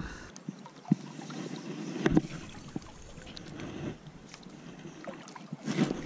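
Water and wind noise around a small boat on a river, with a few sharp clicks about one and two seconds in.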